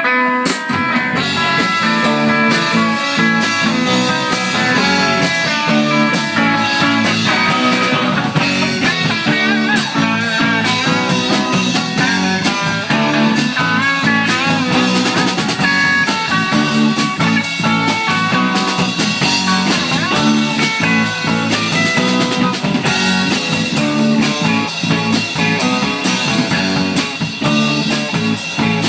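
Live rock band playing: electric guitars over bass guitar and a drum kit, with a steady beat.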